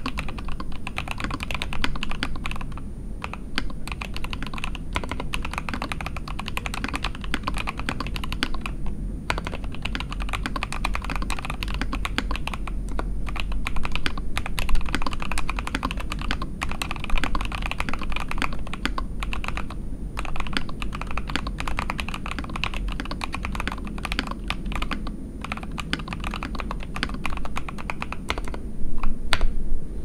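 Continuous typing on a Scarlet TKL mechanical keyboard with Jwick Black linear switches lubed with Krytox, a POM plate in an O-ring mount and PBT keycaps: a dense run of keystrokes broken by short pauses every few seconds.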